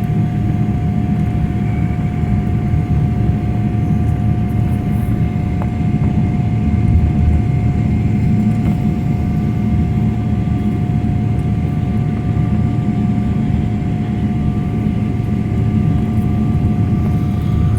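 Airliner's jet engines and airflow heard from inside the cabin: a loud, steady rumble with a steady whine over it.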